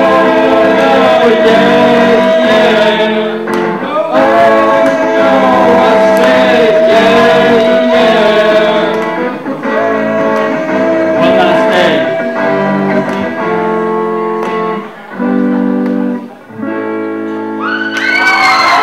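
Live amateur rock band: male voices singing long, held notes over electric guitar chords. Near the end the music breaks off briefly twice before a final sung phrase slides up.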